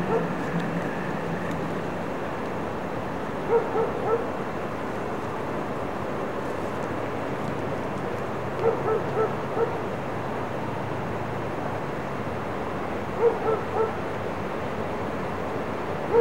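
A dog barking in short runs of three or four barks, a run about every four to five seconds, over a steady low rumble.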